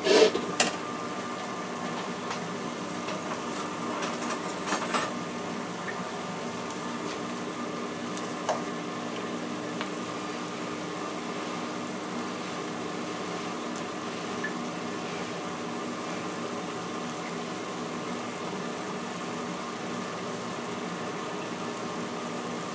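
Glazed carrots, onions and peppers simmering steadily in an uncovered skillet, under the even hum of an air fryer oven running. A few light clinks of utensils and the pan lid in the first five seconds and once more around eight seconds in.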